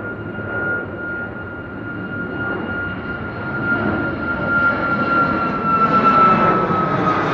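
Jet airliner's engines: a steady high whine that sags slightly in pitch near the end, over a rushing jet noise that grows steadily louder.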